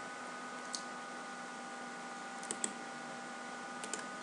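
A few short clicks of a computer mouse: one early, then two quick pairs, over a steady faint electrical hum from the recording setup.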